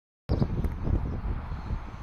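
Wind buffeting the microphone in uneven low gusts, starting abruptly about a quarter second in.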